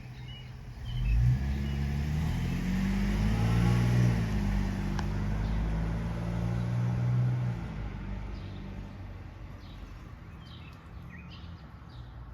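A motor vehicle drives past, its engine note rising and then falling as it goes by, loudest about a second to seven seconds in. Faint bird chirps follow near the end.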